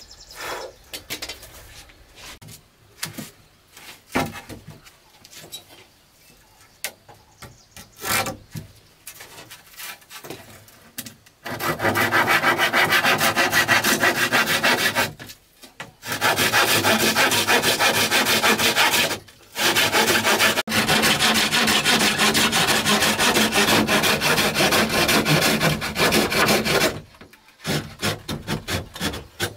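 Hand saw cutting through a wooden pole in quick back-and-forth strokes. The sawing runs loud and continuous from about a third of the way in, with two short pauses. Before that there are only quiet, scattered knocks and scrapes of wood.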